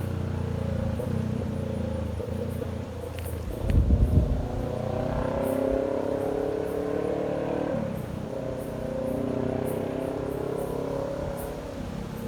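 Kawasaki Ninja 650's parallel-twin engine running through a direct straight-pipe short exhaust with no muffler. There is a loud low burst about four seconds in. The revs then climb steadily for about three seconds and drop back.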